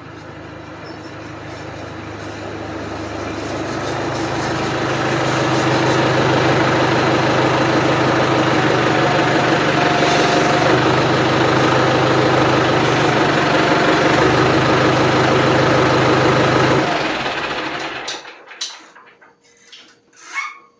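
Ford 5610s tractor's four-cylinder diesel engine running, getting louder over the first several seconds, then shut off near the end, followed by a few clicks and knocks. It runs louder than usual, which the owner puts down to a cracked exhaust manifold.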